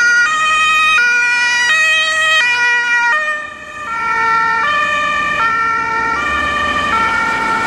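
German two-tone emergency horn (Martinshorn) on fire-brigade vehicles on an emergency run, alternating a high and a low note about every 0.7 s. The sound dips briefly about three and a half seconds in and then carries on at a slightly lower pitch.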